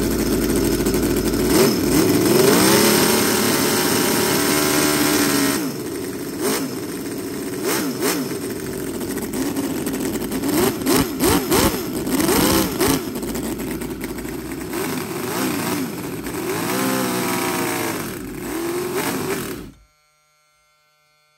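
HL VX-800 scale model V8 petrol engine running and being revved up and down by hand on the throttle, with a quick run of short blips in the middle. Near the end it cuts out abruptly as it runs out of fuel.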